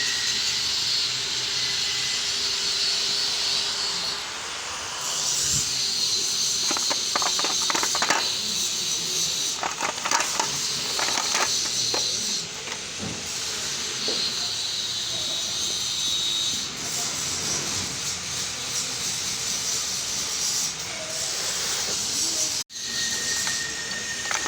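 Steady loud hissing, with bursts of quick clicks about a quarter and about halfway through.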